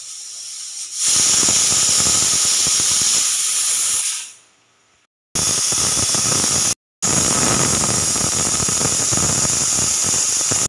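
Stovetop pressure cooker whistling: steam jets out from under the weighted whistle valve in a loud, shrill hiss, a sign that the cooker is at full pressure. It swells about a second in, dies away near four seconds, then comes back twice, starting and stopping abruptly.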